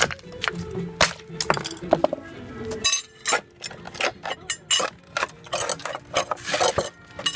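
Steel hammer striking the nailed wooden cleats on a concrete form board to knock them loose while stripping the forms: a series of irregular sharp knocks and clinks.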